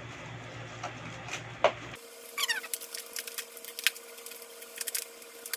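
Eating sounds close to the microphone: chewing with many small clicks and smacks. About two seconds in, the background changes abruptly and a faint steady hum sets in.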